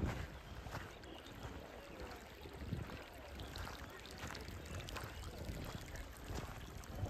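Shallow geothermal runoff stream flowing and trickling over gravel, with low rumbles of wind on the microphone near the start and near the end.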